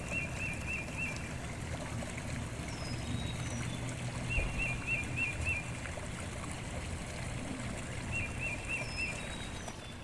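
A rocky stream rushing steadily over rapids. A bird sings a quick phrase of five or six notes three times, about four seconds apart, with a few short higher chirps between.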